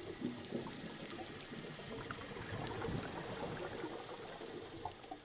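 Underwater bubbling and gurgling from a scuba diver's exhaled air, with faint scattered clicks.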